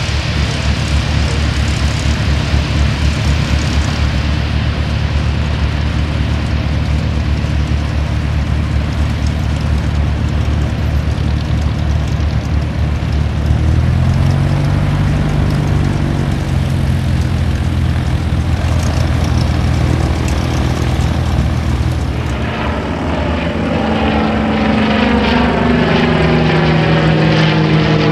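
Twin Wright R-2600 radial engines of a B-25 Mitchell bomber running at full power for takeoff and climb-out, a loud steady drone whose pitch steps up about halfway through. Near the end a B-25 passes close overhead, the drone swelling with sweeping tones as it goes by.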